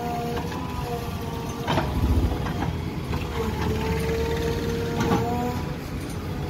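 JCB 3DX backhoe loader's diesel engine running under load while its backhoe bucket digs through rubble, with a steady whine over the engine. Two sharp knocks of the bucket, one near two seconds in and one about five seconds in.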